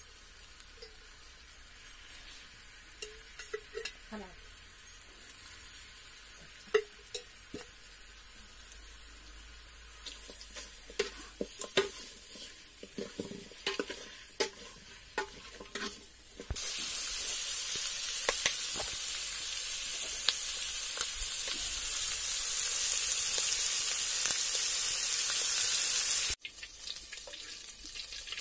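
Mutton pieces frying with turmeric and other spices in an aluminium pot, a steel spoon scraping and clicking against the pot as they are stirred. About halfway through a loud, steady sizzle comes in suddenly and cuts off abruptly near the end.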